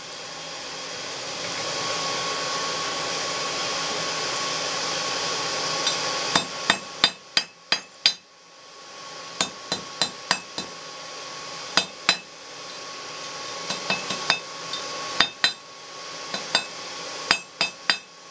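Air blower of a coal forge rushing steadily for about the first six seconds, then a hand hammer striking red-hot steel on an anvil in quick runs of sharp blows, with the blower still running quietly underneath.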